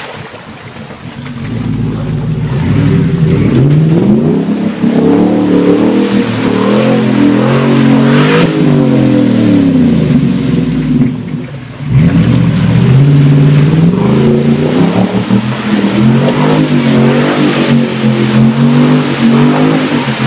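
Ford Raptor pickup's V8 engine revving hard again and again under load as the truck churns through deep mud and water, its pitch climbing and falling. It eases off briefly about two-thirds of the way through, then revs up again.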